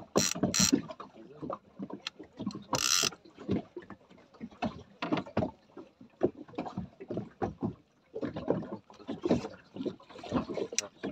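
Water slapping and knocking irregularly against the hull of a small anchored boat, with the handling noises of a fishing rod and reel. A few short rasping bursts come in the first three seconds.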